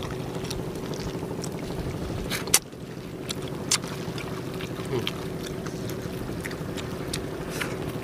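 A boat engine running steadily at one pitch, a continuous drone under the scene. Scattered sharp clicks sit over it, with one loud snap about two and a half seconds in and a smaller one about a second later.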